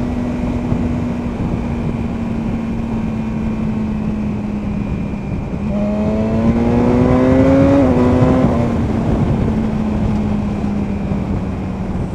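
2017 BMW S1000R's inline-four engine through its factory Akrapovic slip-on silencer, cruising steadily, then pulling harder with a rising note about six seconds in. A quick upshift about two seconds later drops the pitch, and the engine settles back to a steady cruise. Heavy wind rush on the helmet-mounted microphone.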